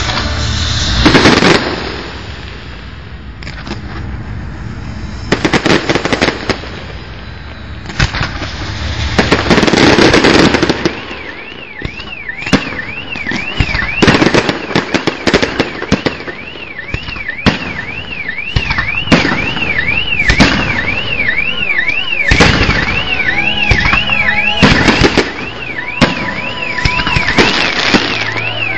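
Fireworks display: repeated bangs and crackling bursts, the loudest a few seconds before the middle. From about a third of the way in, an alarm-like tone warbles steadily up and down about one and a half times a second beneath the bangs.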